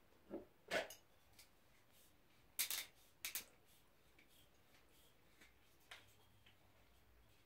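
A few scattered short clicks and knocks of objects being handled, as the screw cap of a glass oil bottle is twisted open. The loudest are a couple of sharp clicks about three seconds in.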